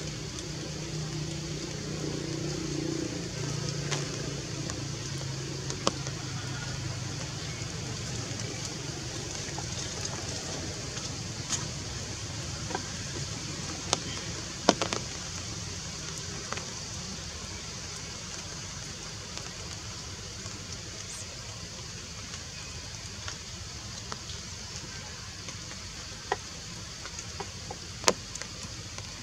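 Steady outdoor background hiss with scattered sharp clicks and snaps, and a low hum during the first several seconds.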